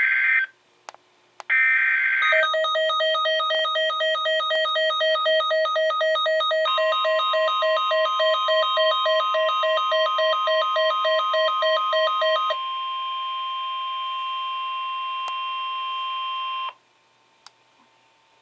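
Emergency Alert System broadcast tones. Near the start come two short buzzy bursts of SAME header data, then a fast pulsing beep of about two to three beeps a second. About six and a half seconds in, a steady alert tone joins the beeping. The beeping stops about twelve and a half seconds in, and the steady tone cuts off abruptly about four seconds later.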